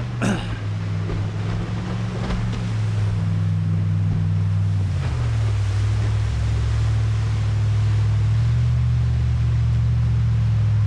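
Jet boat engine running hard as the boat comes up the river, the sound growing louder; its pitch steps down about five seconds in and then holds steady. A brief high sweep falls quickly near the start.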